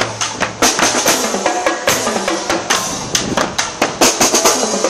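Street marching band playing: snare and bass drums beat a quick, steady rhythm, with pitched melody notes over the drums.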